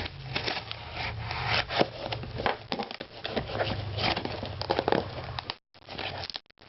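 A knife cutting and ripping into a taped shipping package, with an irregular run of scratches, rips and rustles of tape and packaging. It cuts out briefly twice near the end.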